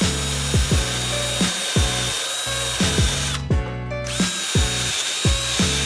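Cordless drill spinning at a steady speed. It stops about three and a half seconds in and spins up again about a second later, over background music with a steady beat.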